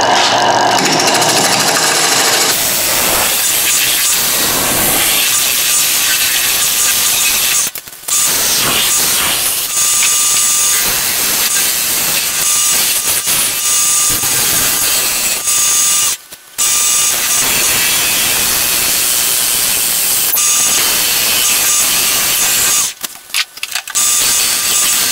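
A gouge cutting a spinning wood-and-acrylic blank on a wood lathe: a loud, steady scraping hiss of the cut, breaking off briefly three times as the tool lifts away, about 8 and 16 seconds in and again near the end.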